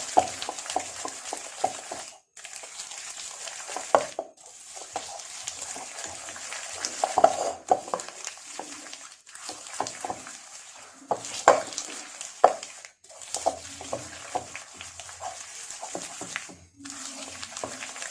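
Butter and sugar being stirred and creamed together in a bowl, with irregular scraping and knocks of the utensil against the bowl.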